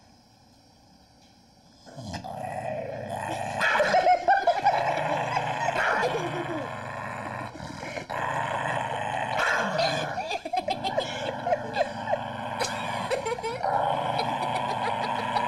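A dog growling and whining over a chew bone in long, wavering grumbles that start about two seconds in and carry on without a break.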